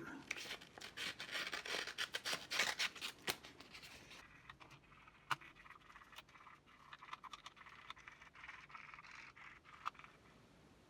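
Fine 1500-grit sandpaper rubbing over the gold contacts of a keyboard circuit board in quick short strokes to clean them. The strokes are strongest for the first few seconds, then lighter and fainter, with a couple of sharp ticks.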